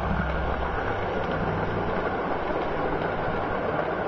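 O gauge model train running on garden-railway track: a steady hum of its electric motor with the rolling of wheels on the rails.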